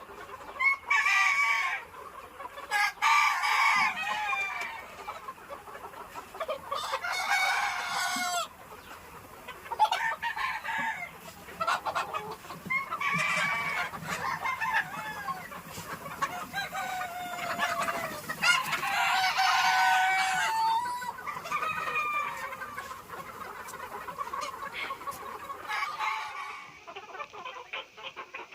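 A flock of desi (village-breed) chickens calling all at once: roosters crowing over one another, mixed with clucking.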